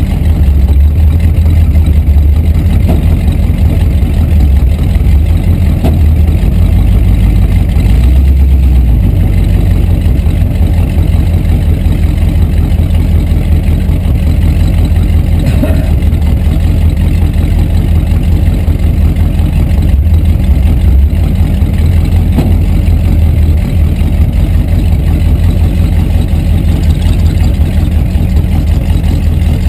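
Rat rod's exposed engine idling and running at low speed with a loud, steady, low pulsing rumble, heard from inside the cab.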